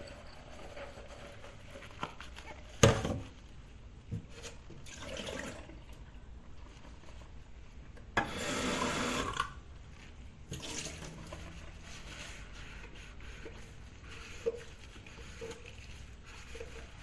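Dishes being washed by hand in a kitchen sink: dishware knocking and clinking, with one sharp knock about three seconds in as the loudest sound. A burst of running water lasts about a second and a half near the middle, with quieter handling and scrubbing sounds between.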